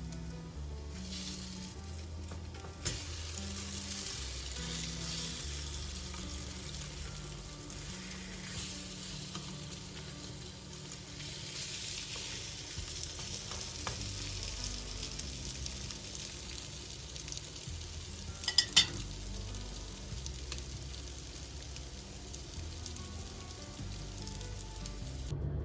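Food sizzling and frying in a pan while being stirred, a steady hiss throughout. A few sharp clinks of a utensil against the pan, the loudest about two-thirds of the way through.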